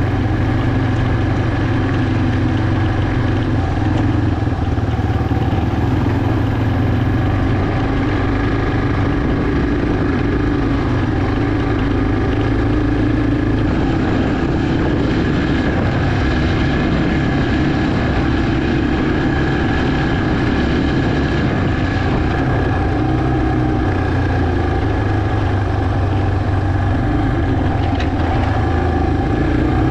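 Yamaha TT-R230 dirt bike's single-cylinder four-stroke engine running steadily as the bike is ridden, heard from on the bike itself.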